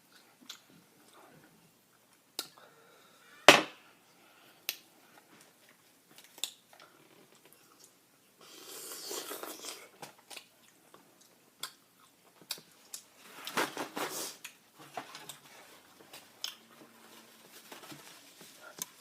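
Close-miked chewing and crunching of crispy fried chicken, with scattered sharp mouth clicks; the loudest is a sharp snap about three and a half seconds in, and two longer bouts of crunching come around nine and fourteen seconds in.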